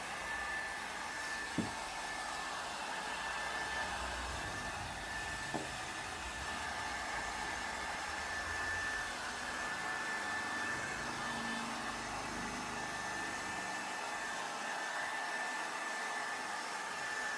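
Steady rush of a small blower motor with a thin, steady high whine, and two light clicks, about one and a half and five and a half seconds in.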